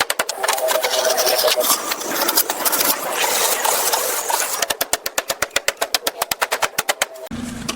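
A power tool rattling with fast, even strikes, about a dozen a second, that stop shortly before the end.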